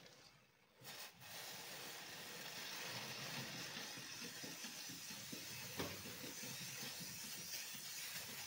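Aerosol chain-lube spray hissing onto a motorcycle's drive chain: a short puff about a second in, then one long continuous spray.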